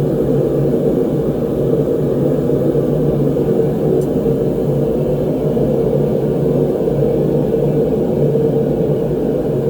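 Gas forge burner running steadily at welding heat, a constant loud rushing hum with no breaks.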